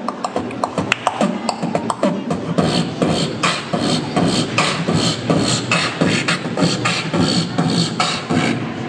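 Human beatboxing: a performer makes drum-kit sounds with the mouth in a steady, repeating rhythm of sharp hits. About two and a half seconds in, the pattern grows fuller and denser.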